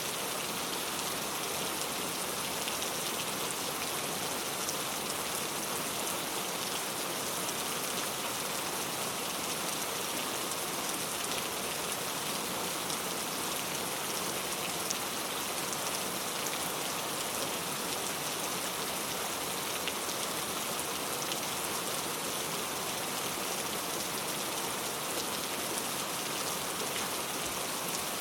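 Heavy rain falling steadily: a dense, even hiss of rain with faint scattered drop ticks, with no thunder.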